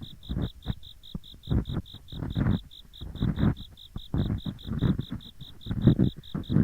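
Ear picks scraping and rubbing in both ears of a binaural microphone in irregular, close, heavy strokes, over the steady pulsed chirping of autumn insects at about six to seven chirps a second.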